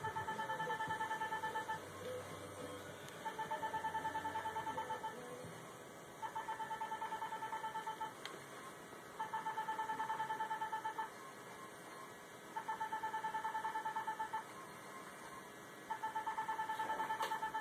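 Ulthera System focused-ultrasound skin-tightening machine beeping in quick trains, six runs of rapid identical beeps, each about two seconds long and about three seconds apart, each run marking a line of treatment pulses fired from the transducer.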